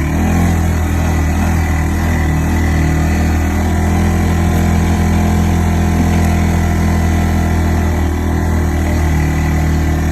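ATV engine running steadily at an even pitch, with no revving or changes in speed.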